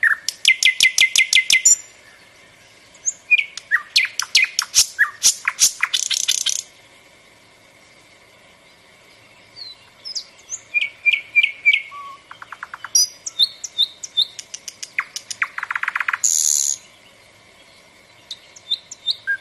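A songbird singing in phrases of rapid repeated notes and trills, with short pauses between phrases.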